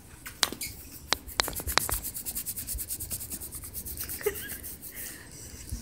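Close rubbing and scratching of a dog's fur and body against the handheld phone and the couch as it wrestles. There are a few sharp clicks in the first two seconds, and a fast run of rasping scratches in the middle.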